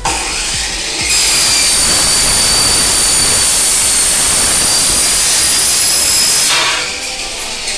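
A loud, steady machine noise: a rushing hiss with a high, steady whine. It starts abruptly about a second in and dies away after about five and a half seconds.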